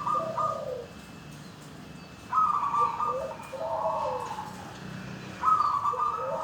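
Zebra dove (perkutut) cooing: a phrase ends just after the start, a full phrase comes about two seconds in, and another begins about five seconds in. The phrases repeat about every three seconds, each a higher opening note over lower notes that fall away.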